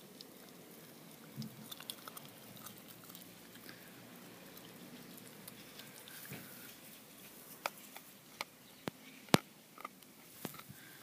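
West Highland white terrier puppy gnawing and crunching on a large raw bone: scattered sharp clicks and cracks of teeth on bone, thicker in the second half, with one crack much louder than the rest.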